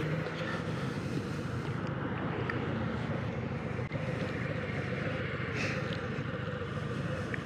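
Harley-Davidson V-twin motorcycles idling steadily at the roadside while a car drives past close by.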